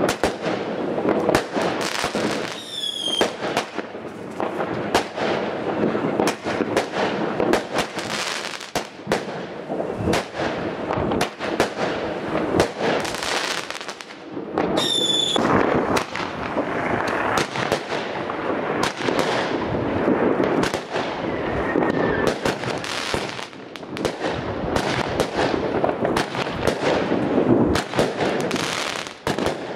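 16-shot firework cakes firing: a dense run of launch thumps, bangs and crackling breaks following one another in quick succession. A short falling whistle cuts through about three seconds in and again about fifteen seconds in.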